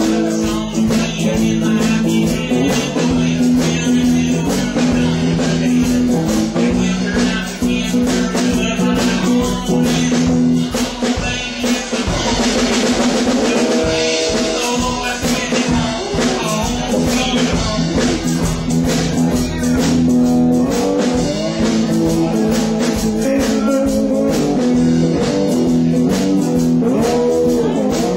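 Live band music: a strummed acoustic guitar played over a drum kit, with a man singing into the microphone at times.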